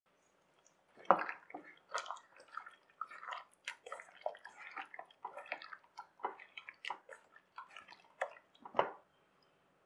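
A bare hand squishing raw chicken pieces through a thick, wet green yogurt-and-herb marinade in a stainless-steel bowl. It makes irregular wet squelches that start about a second in and stop near the end, with the loudest ones at the start and near the end.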